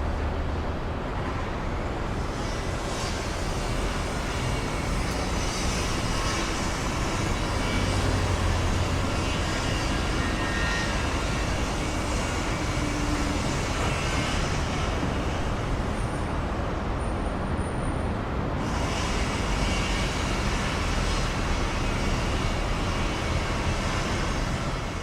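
City street traffic ambience: a steady wash of passing cars, buses and trucks.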